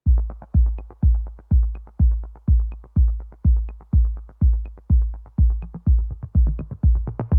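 Electronic background music: a deep drum-machine kick beating steadily about twice a second with faint ticks above it; just at the end a fuller synth layer comes in.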